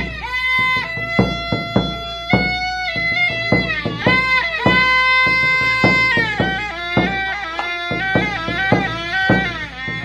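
Traditional Q'eqchi' drum-and-pipe music. A small end-blown pipe plays a high, shrill melody, with long held notes in the middle and quicker notes near the end, over repeated beats on a large double-headed drum.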